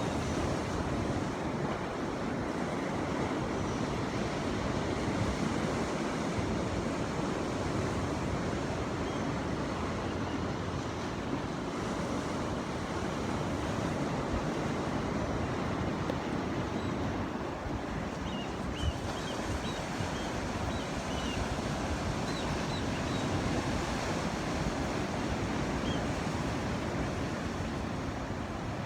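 Ocean waves surging and breaking on the shore, a steady rush of surf without a break.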